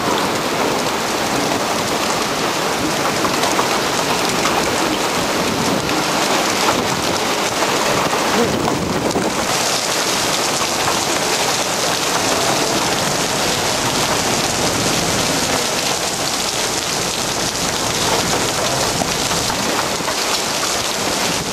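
Heavy rain and hail falling hard on pavement, a steady dense hiss with no let-up.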